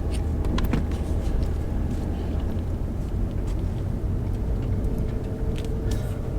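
A steady low rumble with a few sharp clicks and ticks scattered through it, and a faint steady hum in the second half.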